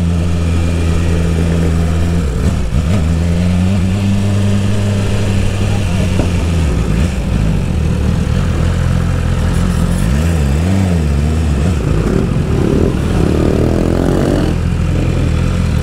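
BMW S1000RR's inline-four engine running under way with no exhaust silencer fitted: a steady drone whose pitch dips briefly a couple of seconds in and rises and falls with the throttle around ten seconds in.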